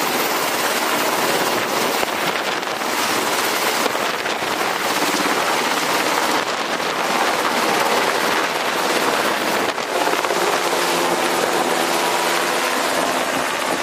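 Sikorsky UH-60 Black Hawk helicopter's rotors and twin turboshaft engines running loud and steady as it lifts off and climbs away, with a steadier engine tone coming through near the end.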